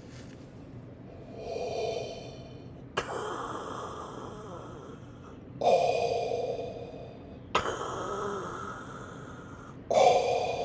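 A man breathing heavily through his open mouth in loud, excited gasps, in and out roughly every two seconds. The loudest breaths come near the middle and near the end.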